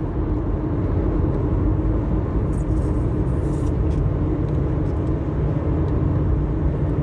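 Car interior noise while driving: steady low road and engine rumble heard from inside the cabin.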